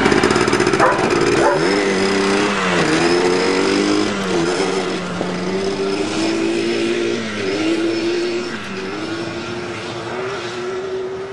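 Yamaha Blaster 200's single-cylinder two-stroke engine running and revving up and down, its pitch dipping and climbing again several times. It is running on a homemade reed petal cut from a bank card in place of a broken dual-stage reed.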